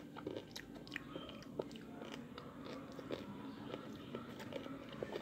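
A person chewing a Reese's Pieces candy: faint crunching of the candy shell, heard as irregular small clicks.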